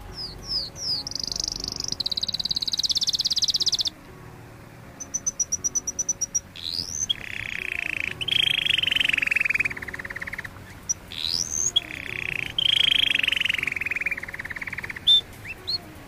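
Canary singing a varied song: rising whistled notes, fast rolling trills, a rapid run of high chips, and long trills that fall in pitch, with short breaks between phrases.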